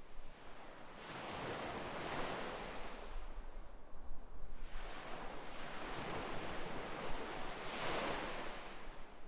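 Ocean waves breaking and washing on a shore, the surf swelling and fading in repeated surges, with the strongest swell about eight seconds in.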